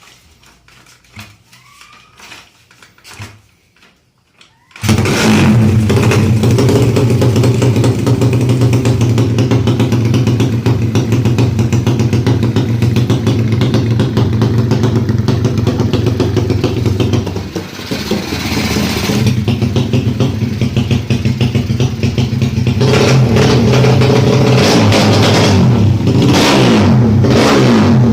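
The single-cylinder four-stroke engine of a Honda Kharisma drag bike, built out to 200cc and not yet tuned, starts suddenly about five seconds in after a few quiet clicks and runs loud. The revs sag briefly about two-thirds of the way through, then it is revved in short blips near the end.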